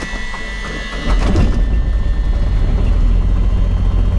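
Beechcraft Bonanza's six-cylinder piston engine starting: the starter cranks the propeller for about a second, then the engine catches and settles into a steady, loud, low-pitched run.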